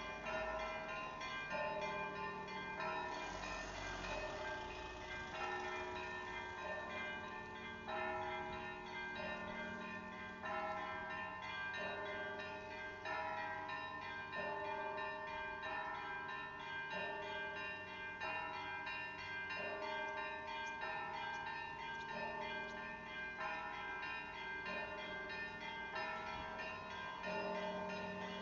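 Russian Orthodox church bells of the Rostov Kremlin belfry rung together by hand in the Russian style (zvon). The small high bells are struck in quick repeating patterns, over larger bells whose lower notes change every second or two.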